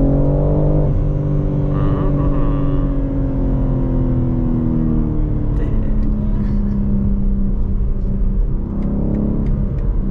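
BMW G80 M3's twin-turbo inline-six heard from inside the cabin, pulling with a rising note, then about a second in the throttle eases off and the engine note falls slowly as the car slows, settling into a steady cruise over road rumble.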